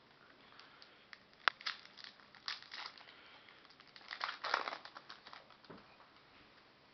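Foil wrapper of a baseball card pack crinkling and tearing as it is opened, in two busy spells of crackles with sharp clicks, the loudest about a second and a half in and again around four and a half seconds.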